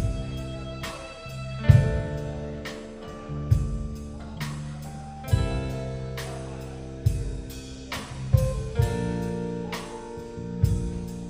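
Live rock band playing: electric guitars holding ringing chords over a drum kit, with a heavy accented hit about every two seconds.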